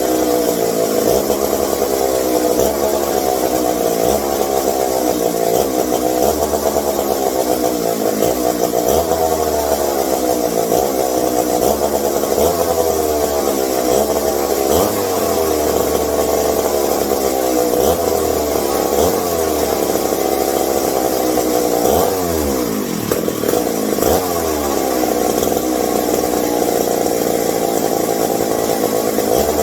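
Vintage McCulloch 740 two-stroke chainsaw engine running, its pitch wandering up and down instead of holding steady, with a sharp dip and recovery about two-thirds of the way through. The owner blames the unsteady running on the carburetor.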